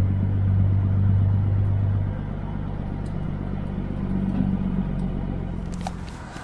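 Kenworth W900 semi truck's diesel engine running on the road, a steady low drone that drops in level about two seconds in. A few sharp clicks near the end.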